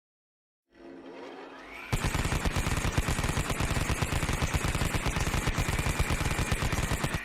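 Machine gun sound effect: a rising whine for about a second, then a long, very rapid burst of continuous fire that stops near the end, with the whine still holding under it.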